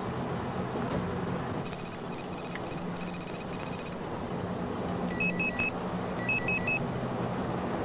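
Cell phone ringing inside a moving car: two bursts of a fast electronic trilling ring about two seconds in, then two short groups of three beeps a little later, over steady road and engine hum.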